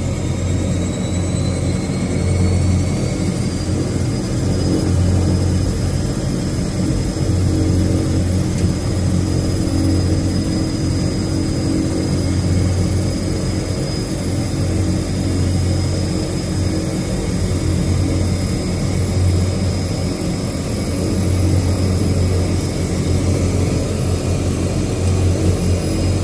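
De Havilland Canada DHC-6 Twin Otter floatplane's Pratt & Whitney PT6A turboprop engines running, heard from inside the cabin: a steady low propeller drone with a high turbine whine that rises in pitch over the first few seconds and then holds.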